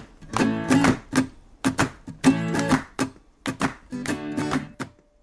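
Jingle backing music of strummed guitar chords, with repeated chord strokes and no singing.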